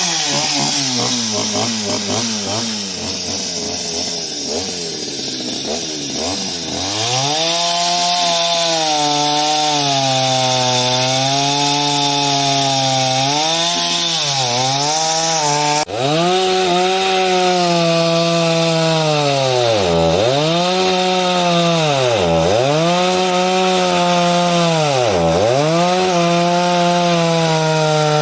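Chainsaw cutting wood, its two-stroke engine running at high revs. In the second half the pitch drops sharply and picks up again about every second and a half as the chain bogs down in the cut and recovers.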